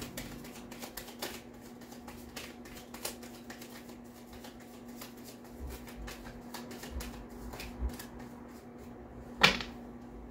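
A deck of tarot cards being shuffled by hand: a run of quick, light card flicks and clicks, with one sharper tap near the end.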